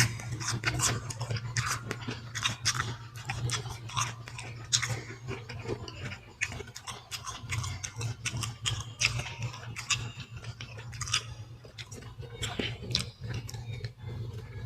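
A person chewing and biting fruit, with irregular crunches and mouth clicks, over a steady low hum.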